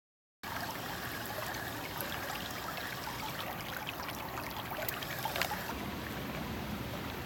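Steady rushing and trickling of a flowing river, with a few faint ticks; it cuts in abruptly after a brief dead silence.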